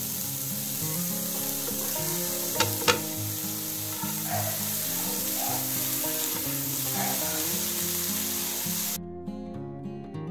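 Eggs and spinach sizzling as they sauté in olive oil in a frying pan and are stirred, with two quick knocks of the utensil against the pan about two and a half seconds in. Soft background music runs underneath. The sizzling cuts off suddenly near the end, leaving acoustic guitar music.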